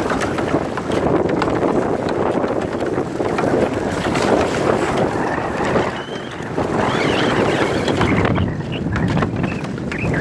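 Strong wind buffeting the microphone over choppy water, with waves slapping and splashing against the bow of a small pedal-driven boat.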